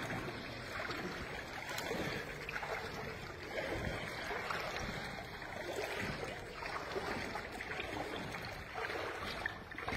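Rubber water boots wading slowly through shin-deep floodwater: water sloshing and swishing around the legs, swelling and easing with each stride.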